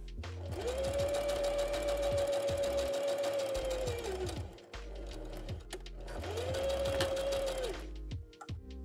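Electric domestic sewing machine stitching linen: the motor whine rises to speed, holds steady for about four seconds and winds down, then runs again for a shorter burst of about a second and a half near the end.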